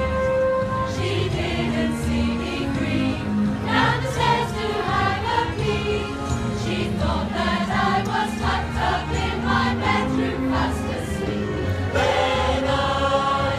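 Mixed choir of men and women singing a Christmas carol in several voice parts, swelling louder near the end.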